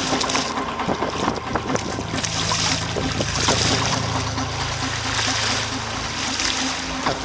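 Wind buffeting the microphone over water splashing around a sea kayak on a choppy sea, the rush swelling and easing every second or so.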